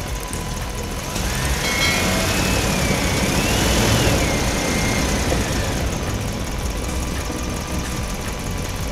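Diesel-like truck engine sound from radio-controlled model dump trucks, idling with a knocking rumble. The sound swells between about one and six seconds in, with a high whistle that rises and falls twice over that stretch.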